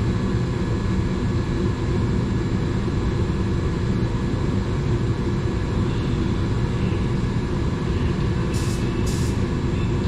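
Steady low drone of paint-shop machinery, with two short high hisses of air about half a second apart near the end.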